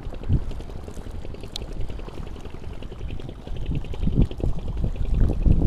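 Choppy sea water lapping and splashing against a concrete seawall, an irregular run of small slaps that grows louder near the end.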